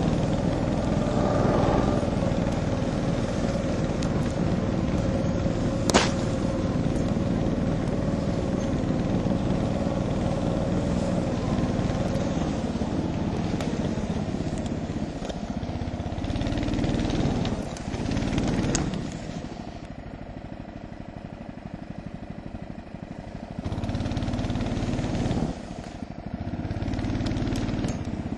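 Husky mini snowmobile engine running under load as it is ridden through snow, with a sharp knock about six seconds in. About two-thirds of the way through the revs drop, then they pick up again twice near the end.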